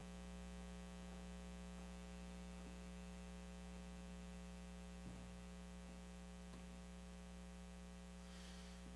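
Faint steady electrical mains hum, with a couple of faint light taps about five and six and a half seconds in.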